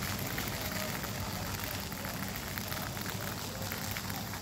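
Dry crop stubble and weeds burning across a field, the flames crackling steadily with many small sharp pops.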